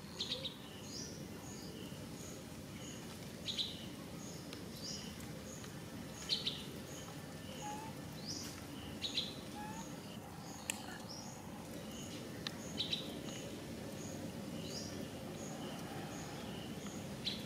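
Birds chirping: short high chirps every second or two, with a high note repeated at an even pace a little under twice a second, over a steady low background rumble.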